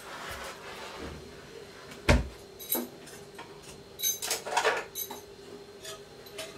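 Kitchen clatter as things are handled at the counter: one sharp thump about two seconds in, then a smaller knock and a cluster of clinks and knocks a couple of seconds later.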